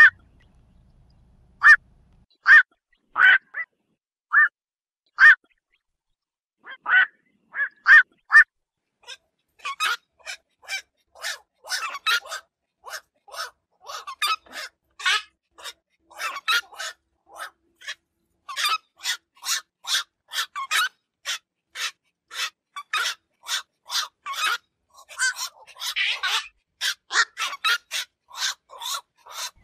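Black-crowned night herons calling with short repeated calls. At first single calls come about a second apart, then from about nine seconds in they run quickly, two or three a second.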